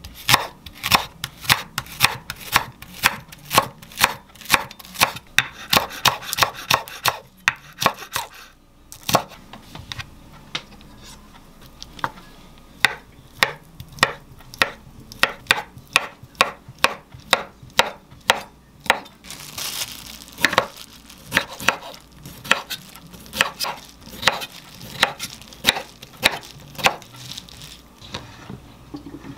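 Chef's knife chopping on a wooden cutting board, first through green onion and then through cooked chicken breast: sharp knocks about two a second, with a short pause about seven seconds in.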